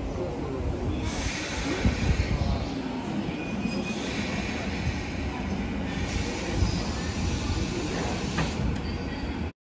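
JR 185 series electric train braking to a halt at a station platform, with rumble and brief wheel and brake squeal, then standing at the platform. The sound cuts off suddenly near the end.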